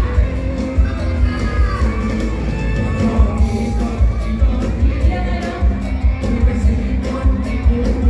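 Live band music: a singer's amplified voice over a steady drum beat, bass and electric guitar.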